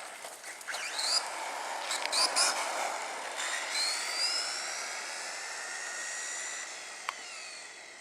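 Losi 22 RC buggy's sensored 13.5-turn brushless electric motor whining as the car speeds up and slows down, the pitch rising and falling several times, with a few sharp clicks in the first few seconds.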